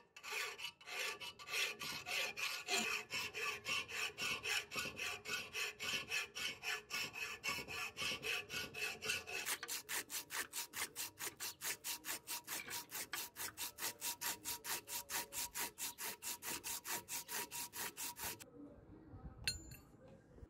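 A hand file rasping back and forth on a steel wrench held in a vise for about nine seconds, then a sandpaper strip pulled back and forth around the wrench's shank in faster, even strokes, stopping about 18 seconds in. A light knock follows near the end.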